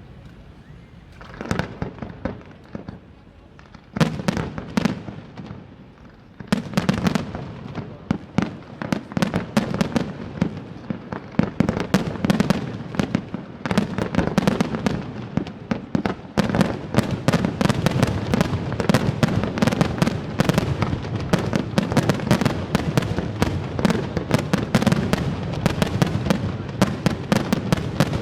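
Fireworks display exploding: a few separate bangs at first, then from about six seconds in a dense barrage of many rapid bangs a second, building toward the end.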